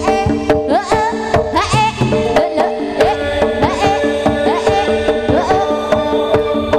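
Live Javanese jaranan-style ensemble music: hand-played drums struck in a fast, dense rhythm, many strokes bending quickly upward in pitch, over several steady held tones.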